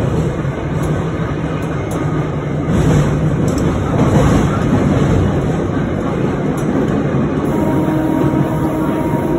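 Trolley car running on rails through a tunnel, heard from inside the wooden car: a steady rumble of wheels on track with a few faint clicks. A faint steady whine joins about seven or eight seconds in.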